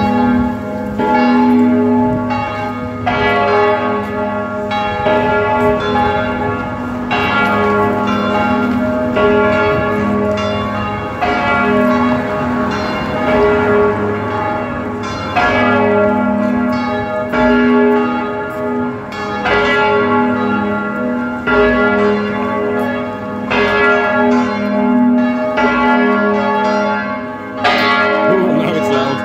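Church bells ringing from a belfry, struck one after another in a steady sequence, each bell ringing on under the next.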